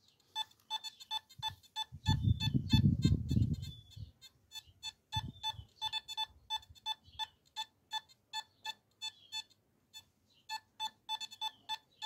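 Nokta Makro Simplex metal detector giving runs of short, same-pitched beeps as a small silver hammered coin is passed over its coil in an air test. A low rumble about two seconds in lasts about two seconds.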